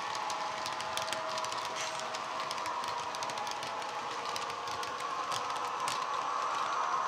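Sound from a Bachmann model Class 70 locomotive's DCC sound decoder, playing a steady diesel engine drone through a small megabass speaker. Many sharp irregular clicks from the model wagons' wheels on the track run through it.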